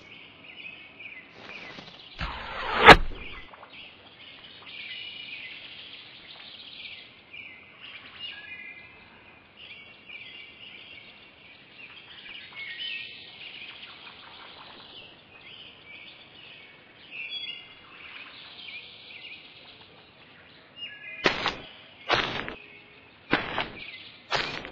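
Small birds chirping and singing, with a loud whoosh ending in a sharp crack about three seconds in, and a run of sharp knocks near the end.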